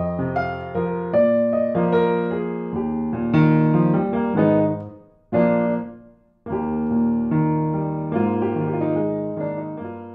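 Background music: a piano melody played note by note. It breaks off briefly twice a little past the middle, then plays on and fades out near the end.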